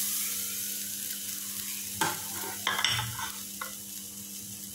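Grated coconut, shallots, garlic and fennel seeds tipped into a dry aluminium kadai to roast: a soft rustle as it slides into the pan at the start, then a steady hiss and low hum with a few light taps against the pan around the middle.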